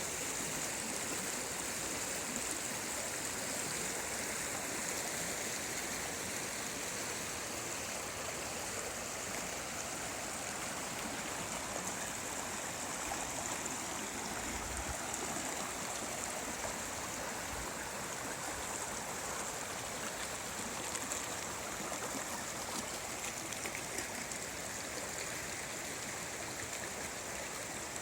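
Mountain river flowing over rocks, a steady rushing of water with cascades.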